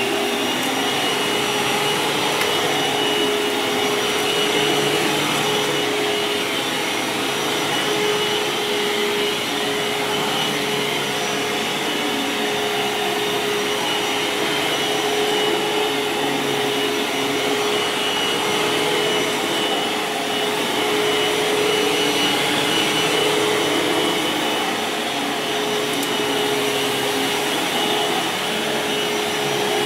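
Eureka Brushroll Clean Technology AS3401A bagless upright vacuum cleaner running on carpet: a steady rushing motor noise with a constant high whine over it.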